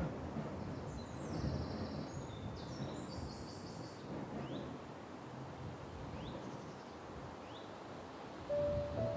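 Outdoor ambience: a steady rushing noise with a few short, high, bird-like chirps. A held musical tone comes in near the end.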